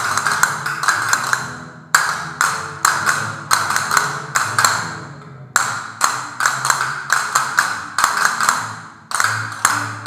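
A group of castanets played in unison, phrases of quick clicks and rolls, each broken off by a short pause before the next phrase starts.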